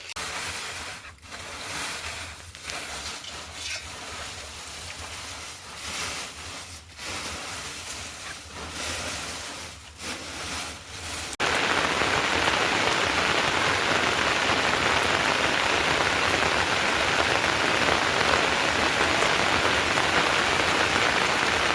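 Rain falling, uneven at first; about halfway through, much louder steady heavy rain cuts in suddenly.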